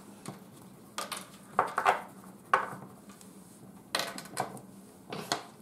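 Wax crayons clacking against each other in a handful and scraping on paper: a string of short, separate clicks and strokes.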